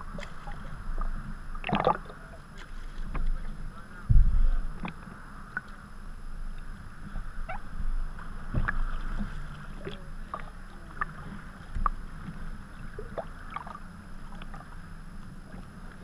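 Sea kayak being paddled: paddle blades dipping and splashing with water dripping and lapping around the hull. A low thump about four seconds in is the loudest sound.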